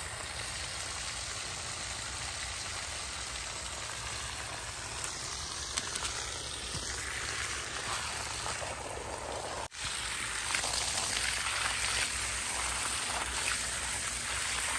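Pond water gushing steadily out of the end of a 3/4-inch PVC discharge line and splashing onto the ground, driven by a running sump pump. About ten seconds in it cuts out for an instant, then comes back a little louder.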